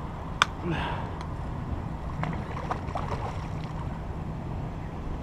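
Steady wind and water noise with a low hum underneath, a single sharp click about half a second in, and faint voices.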